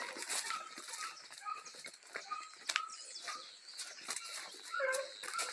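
Dogs yelping in short, repeated calls, over a steady rustle of grass and brush.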